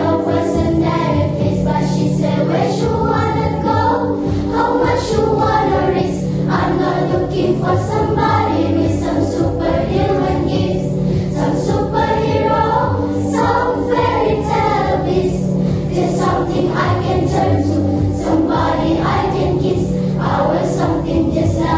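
Primary-school girls' choir singing in harmony, the voices moving over steady held low notes.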